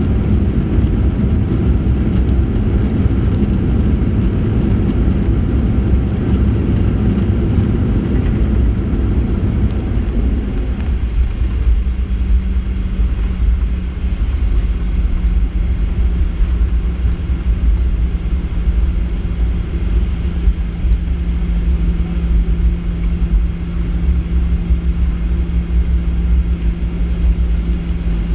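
Boeing 737-800 cabin noise on the ground after landing, heard from a seat near the front: a loud low rumble that eases about eleven seconds in, leaving a steady hum.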